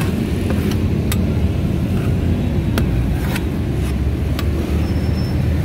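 Steady low rumble of road traffic, with about half a dozen sharp clicks scattered through it.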